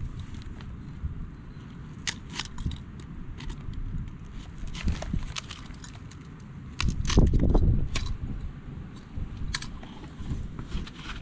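Steel wire mesh and rebar clinking and rattling as they are handled, in scattered sharp clicks, with a louder low rumble about seven seconds in.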